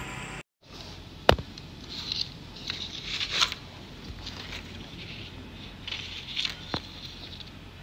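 Makeup packaging being handled by hand: light plastic rustling and scraping, with a sharp click about a second in and another near the end.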